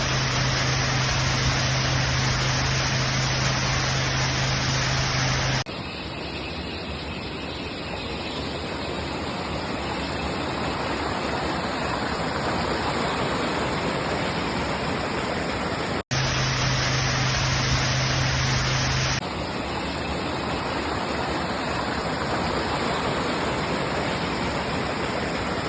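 Rushing water of a river and waterfall, a steady even noise heard in several cut-together clips, with abrupt changes at each cut. In two of the clips a steady low hum sits under the water.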